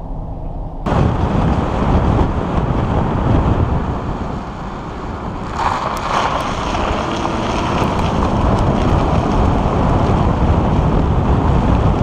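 Brief muffled drone inside the Audi Q7's cabin. About a second in it cuts to loud wind buffeting on a microphone mounted on the car's front wing, over road noise from the front tyre on rough tarmac. About six seconds in the noise turns brighter, with a few scattered clicks like small stones.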